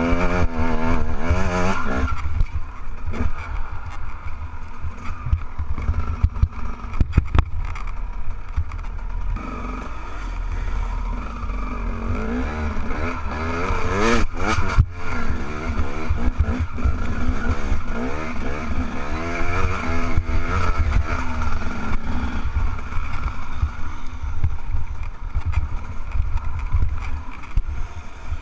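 Enduro dirt bike engine revving up and down over and over as it works up a steep, loose rocky slope, heard from a helmet camera with heavy wind and rumble on the microphone. Sharp knocks a few times from the bike bumping over rocks.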